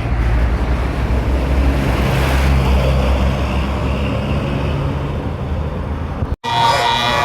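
A large bus's diesel engine running close by, a low steady rumble with wind noise on the microphone. Near the end it cuts out abruptly, and a tune of held, stepping tones follows.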